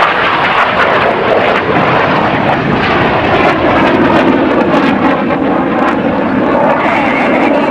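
A Red Arrows BAE Hawk T1 jet passing low, its Adour turbofan making a loud, steady rushing roar.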